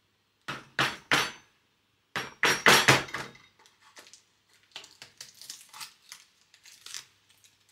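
A spice container rattling and knocking as seasoning is shaken into glass canning jars, with clinks of glass and kitchenware. Three sharp rattles come first, then a louder run of shaking, then lighter scattered taps.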